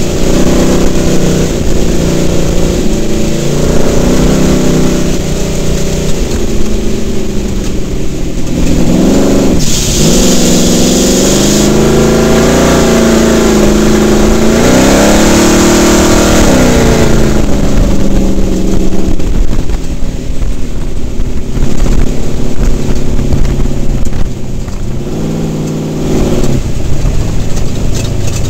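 Trophy truck engine heard loud from inside the cab at race pace, its pitch rising and falling as the throttle is worked. It drops sharply about nine seconds in, then climbs again. A hiss lasting about two seconds comes in about ten seconds in.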